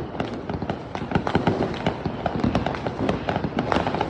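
Fireworks and firecrackers going off all around in a dense, continuous string of overlapping bangs and pops.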